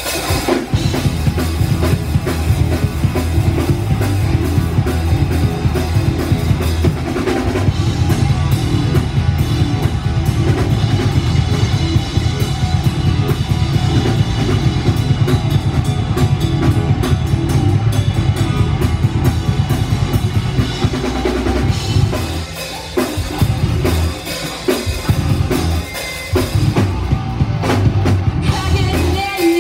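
Live metal band playing an instrumental passage: electric guitar, bass guitar and a drum kit with dense, driving bass-drum beats. The full sound thins out briefly about two-thirds of the way through and again near the end.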